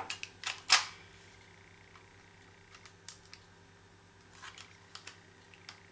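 Plastic clicks from a UTG spring-powered 1911 airsoft pistol being handled as its stiff all-plastic slide is worked off for disassembly: two sharp clicks within the first second, then scattered faint clicks.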